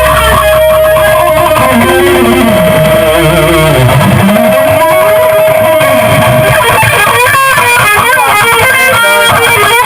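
Loud electric guitar playing, with long held notes and wavering bends and vibrato. A low bass part underneath stops about four seconds in.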